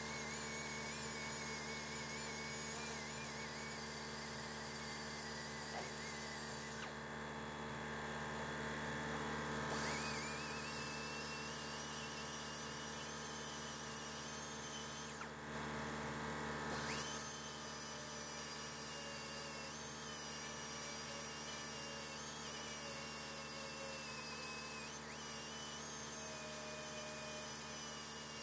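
Small high-speed power grinder running steadily, grinding down weld beads on a sheet-metal patch panel. Its high whine wavers and dips as it bears on the metal, most noticeably about seven seconds in and again about fifteen seconds in.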